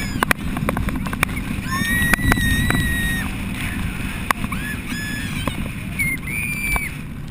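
Girls screaming and squealing as they ride a towed inflatable banana boat, over a steady rush of wind and water. A long high scream comes about two seconds in and another near the end, with shorter shrieks between.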